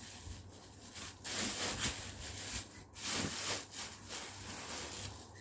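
Uneven rubbing and rustling noise in short strokes with brief pauses, like things being handled close to the microphone.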